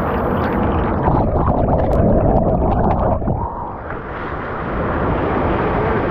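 Steady rushing noise of a river's flowing water. It swells louder about a second in and dips briefly around three and a half seconds in.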